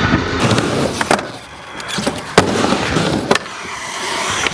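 Skateboard rolling on a concrete ramp, with four sharp clacks of the board and trucks striking the concrete.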